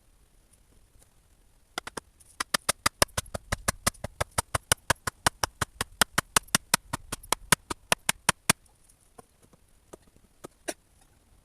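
A fast, even run of sharp knocks, about five a second, lasting some six seconds, then a few single knocks near the end.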